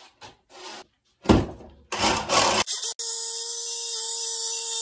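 A plywood panel knocks down loudly and scrapes as it is moved. About three seconds in, a power saw starts and runs steadily with a constant whine, cutting a hatch opening in the 3/4-inch pressure-treated plywood deck.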